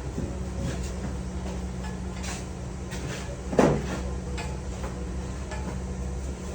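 Steady electrical machine hum with light scattered clicks, and one loud metallic clank about three and a half seconds in.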